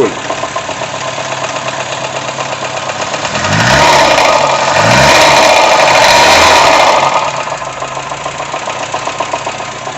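Volkswagen Gol 1.0 AT engine running with a continuous knocking noise, louder for about three seconds in the middle. The engine had lost power on the road, and the mechanic suspects the pistons or the head gasket.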